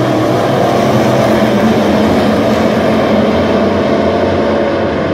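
A pack of dirt late model race cars running hard around the track, many V8 engines blending into one loud, steady din.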